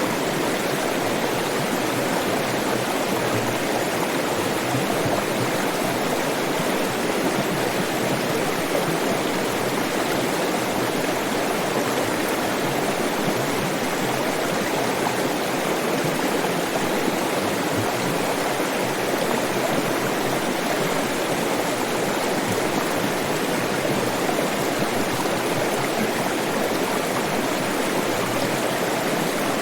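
Stream of water flowing steadily over rocks, an even rushing and babbling with no pauses.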